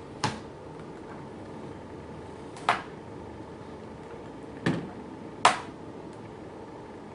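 Plastic screen bezel of a Dell Studio XPS 1645 laptop, held on with double-sided tape, snapping free in four sharp snaps as it is pried off by hand, the last two less than a second apart.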